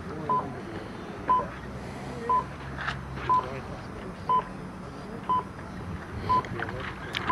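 Electronic race-start timer giving a short, high beep once a second during the start countdown, steady and evenly spaced.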